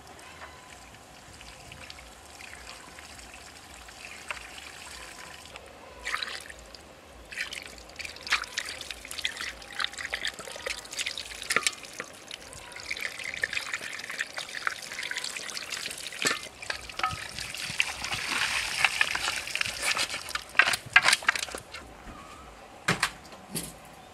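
Water trickling and splashing over raw quail being washed by hand in a perforated aluminium colander, with scattered clicks and knocks of handling against the metal. The running water is heaviest in the second half.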